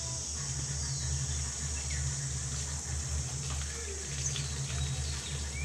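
Water from a garden hose running and splashing as an elephant is washed down, over a steady low hum.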